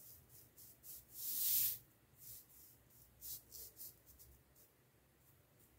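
A drawing tool scratching across pattern paper as a line is drawn to join two points. It makes one longer, faint stroke about a second in, then a few short scratches.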